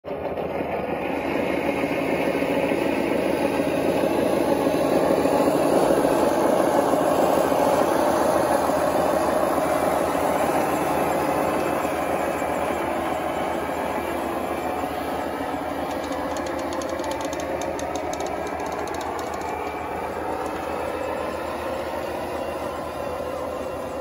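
Radio-controlled model vehicle running: a steady mechanical rumble that builds over the first few seconds and eases off slowly.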